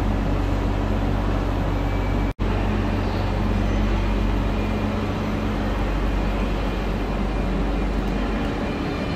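Deutsche Bahn ICE high-speed train humming at the platform under a station train shed: a steady drone with a low hum. The sound cuts out for an instant a little over two seconds in.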